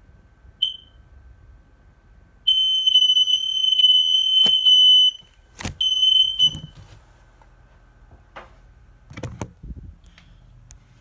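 Battery-powered smoke alarm sounding its loud, piercing test tone after fresh batteries were fitted. A short beep comes first, then a steady shrill tone for about two and a half seconds. After a click it gives a second, shorter burst, and a few handling clicks and knocks follow.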